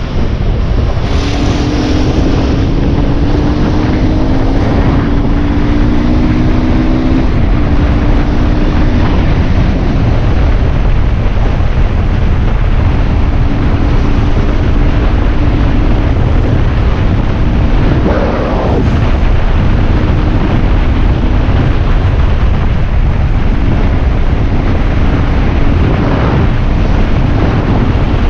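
Aprilia RX enduro motorbike riding along at road speed: heavy wind buffeting on the microphone over the engine, whose note rises gently as the bike accelerates in the first few seconds and then holds steady.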